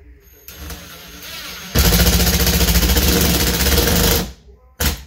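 Cordless impact driver driving a screw into cement board: it spins briefly, then hammers loudly and rapidly for about two and a half seconds as the screw bites and seats, and stops suddenly. A short sharp knock follows near the end.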